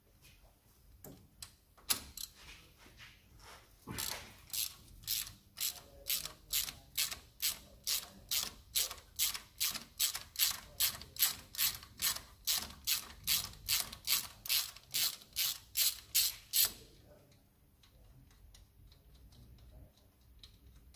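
Hand ratchet wrench clicking in an even run of about two to three sharp clicks a second for some thirteen seconds as it turns a bolt at the front brake caliper. A few scattered clicks come before the run.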